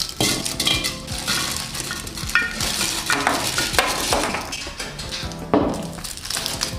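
Twist-wrapped hard candies poured from a glass bowl into a glass clip-top jar: wrappers crinkling and candies clattering against the glass in a continuous rattling pour, with a louder clatter about five and a half seconds in.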